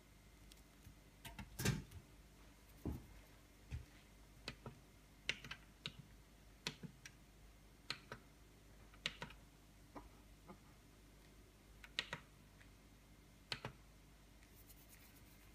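Irregular short clicks, about fifteen of them, from the push buttons on a KitchenAid Artisan two-slice toaster's control panel being pressed, with one louder knock about two seconds in.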